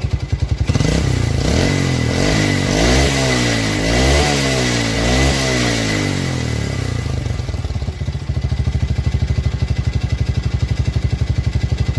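Yamaha Vega R New's single-cylinder four-stroke engine at idle, revved in several rising and falling blips, then settling back to a steady pulsing idle. The engine runs loud and rough, with the ticking the owner complains of and thick exhaust smoke, which the mechanic puts down to a worn, loose piston.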